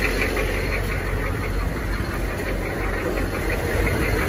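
Military truck engine idling with a steady low rumble.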